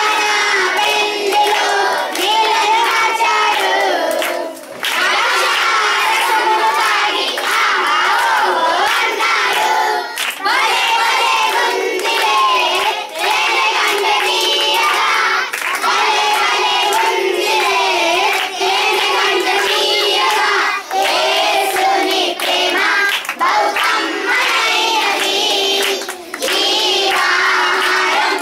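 A group of boys singing together into a microphone, with hand claps.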